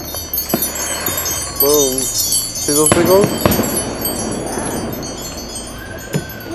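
Tinkling wind-chime sound: a dense shimmer of many short, high chime notes, with a couple of short voice-like sounds about two and three seconds in.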